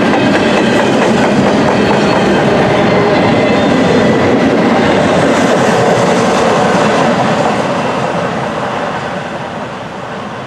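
Double-stack intermodal freight cars rolling past close by, their steel wheels clattering on the rails. The sound holds steady, then fades from about seven seconds in as the last car goes by.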